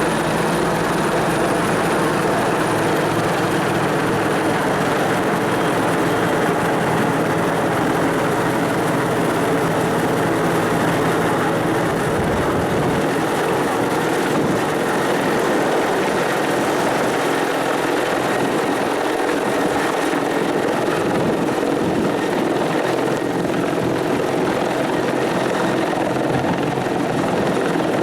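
Bell 412 helicopter's twin turbine engines and four-blade main rotor running, loud and steady. The deepest low rumble drops away about twelve seconds in.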